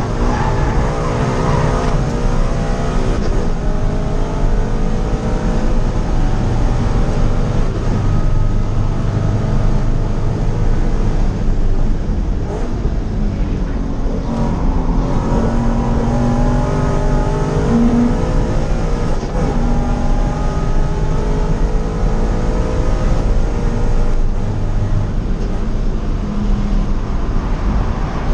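Supercharged Subaru BRZ's 2.0-litre flat-four engine, heard from inside the cabin while driven hard on track. It climbs in pitch under acceleration and drops back on lifts and shifts, several times over.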